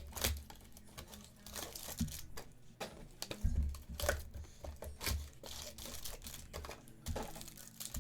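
Sports card packaging being torn open and crinkled, with irregular rustles, clicks and soft knocks of handling on a table.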